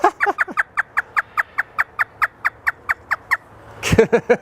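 African grey parrot mimicking hysterical laughter: a fast run of short "ha" notes, each sliding down in pitch, about five a second for over three seconds, with another brief burst near the end.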